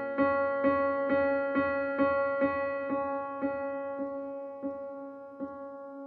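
Soft background piano music: notes struck about twice a second, spacing out and fading toward the end.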